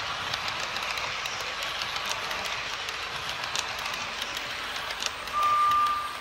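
Model train of Accurascale Mk5 coaches rolling past on the track: a steady rattling rumble of small wheels with sharp clicks over the rail joints. A brief steady high tone, the loudest sound, comes in near the end.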